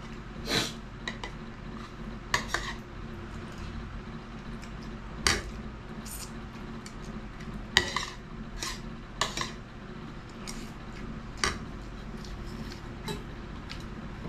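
Metal spoon and fork clinking and scraping against a ceramic plate and a stainless steel bowl while eating: short, scattered clinks every second or so. A steady low hum runs underneath.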